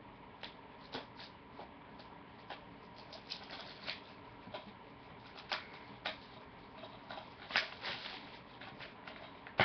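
Hands handling plastic DVD cases and their wrapping: irregular light clicks and rustles, loudest about seven and a half seconds in.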